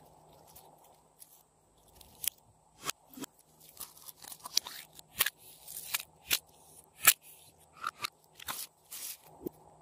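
Glossy red slime squeezed and pressed by hand into a jar, giving irregular sticky clicks and pops. It is faint at first, and the clicks come thick and fast from about two seconds in.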